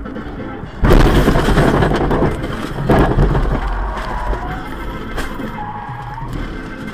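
Car-versus-box-truck highway collision heard from inside the car: a sudden loud crash about a second in, a second loud impact about two seconds later, then fading scraping and tyre noise with a short squeal near the end as the car spins. Background music plays under the start.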